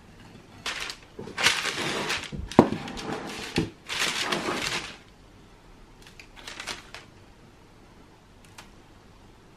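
Sheet of baking parchment rustling and crinkling in several loud bursts as it is spread out and pressed flat by hand, for about four seconds. After that, a few faint light taps as sugar-coated candied orange peel sticks are set down on the paper.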